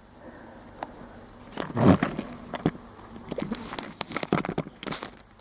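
A plastic toy dragon figure being handled: scattered small clicks, taps and rustles, with a louder bump about two seconds in and a busier run of quick clicks in the second half.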